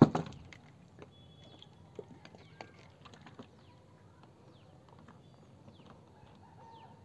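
A sharp knock at the very start, then quiet outdoor background with faint, short bird chirps and a few soft clicks.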